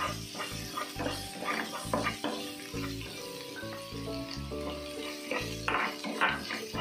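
A wooden spatula stirring and scraping across a nonstick pan in repeated strokes, while crushed black pepper, ginger, garlic and dried red chillies sizzle in hot coconut oil as they are fried to brown.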